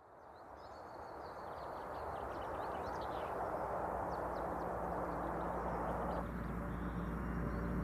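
Winter woodland ambience fading in: a steady rushing hiss with small birds giving short, high chirps, while a low ambient-music drone swells underneath.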